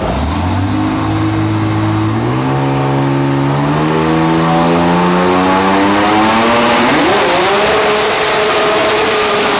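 Dragster's engine revving up through a burnout, its pitch climbing steadily with a quicker step up near the end, while the spinning rear slicks add a growing hiss of tyre noise.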